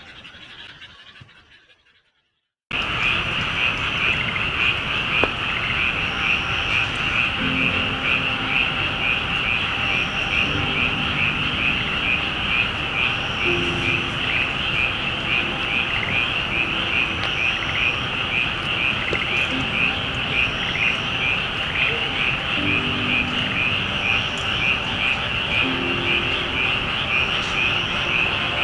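Music fades out, then after a short silence a dense dusk chorus of calling animals cuts in about three seconds in: a steady, rapid pulsing trill, with scattered fainter calls through it.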